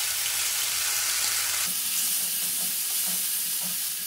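Onion, ginger and garlic paste sizzling in hot oil in a kadhai. From about halfway through, a wooden spatula stirs and scrapes it in repeated strokes.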